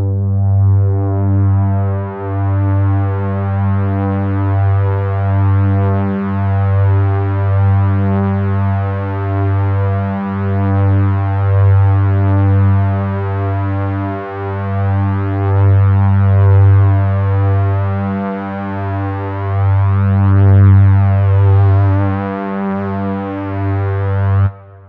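Synthesized cinematic drone, a deep buzzing tone with many overtones that is rhythmically chopped by a gate whose pattern evolves over time. It dips briefly about every four seconds and cuts off suddenly near the end.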